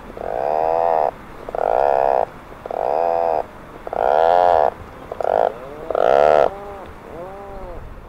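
Atlantic puffin calling: a series of about six drawn-out, low, pulsing calls, each under a second long, followed by fainter ones near the end.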